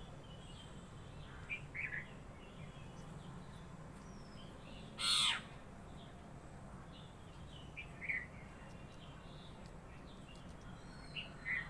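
Birds calling: a few short chirps spread through, and one louder, longer call about five seconds in.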